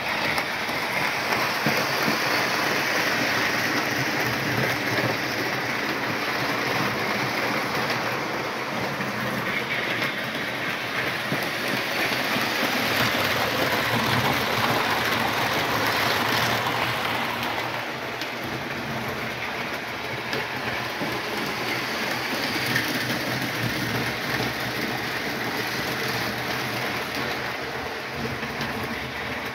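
Electric model train running along its track: a steady rattling clatter of wheels over the rails, a little quieter after about eighteen seconds.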